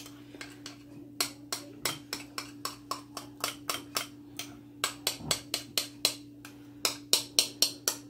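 Spoon clinking against a glass bowl while stirring thick sour cream, a quick run of about three or four clinks a second starting about a second in, over a faint steady hum.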